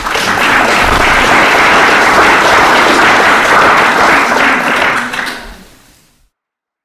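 Audience applauding, loud and steady, then fading out about five seconds in.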